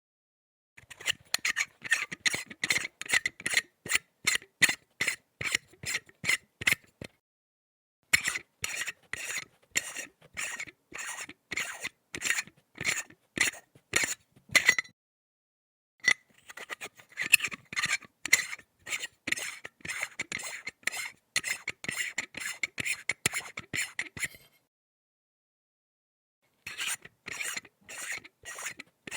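Threaded metal pipe being screwed into another pipe, the metal threads rasping in quick repeated strokes, about two a second. The turning comes in four runs with short silent pauses between them.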